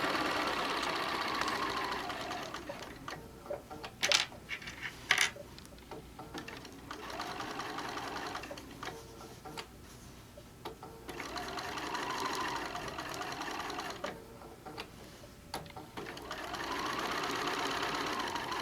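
Electric sewing machine stitching in four short runs, its motor speeding up and slowing down, with pauses between runs. Two sharp clicks come about four and five seconds in.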